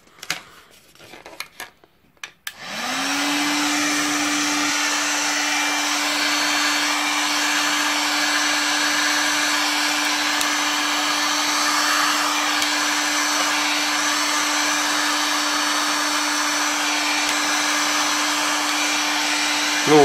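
TexAC TA-01-049 2000 W heat gun switched on: a few clicks, then about two and a half seconds in its fan motor spins up with a rising hum that settles into a steady whine under a constant rush of hot air.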